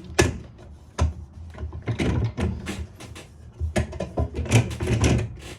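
Kiasa infrared heater bar knocking and scraping against its mounting brackets as it is shifted along them to centre it, with sharp clicks near the start and about a second in.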